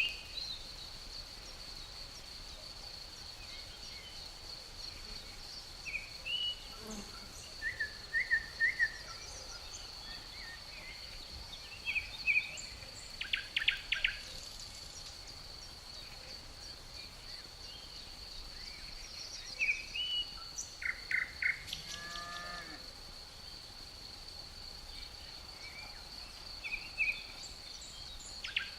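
Steady high-pitched insect drone with birds chirping over it in short calls and quick trills every few seconds. A lower, falling call sounds once a little past the middle.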